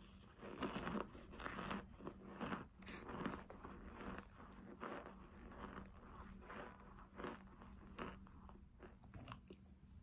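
Mouth chewing and crunching cornstarch powder and chunks close to the microphone: a run of short, crackly crunches, loudest in the first few seconds and softer after.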